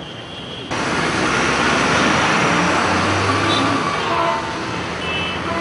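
Road traffic noise: a loud, even rush of vehicles passing close that starts abruptly under a second in and eases a little near the end.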